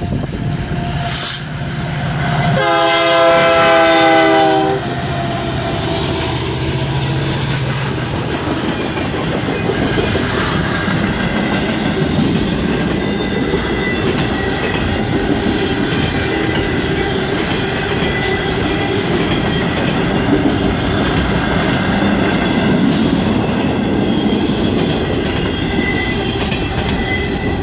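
BNSF freight train led by GE C40-9W locomotives passing close by: about three seconds in the lead locomotive sounds its multi-chime air horn in one blast of about two seconds, the loudest sound here. After that the loaded cars roll past with a steady rumble of wheels on rail and clickety-clack over the rail joints.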